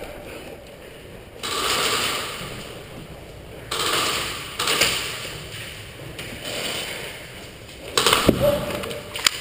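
Rustling movement noise from a player creeping with a gun, then about eight seconds in a quick cluster of sharp snaps, paintball marker shots, followed by a short squeak.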